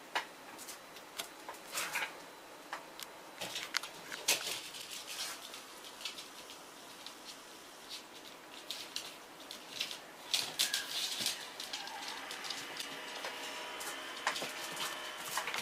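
Two dogs playing on a laminate floor: their claws click and scrabble in quick, irregular bursts with scuffling as they move about.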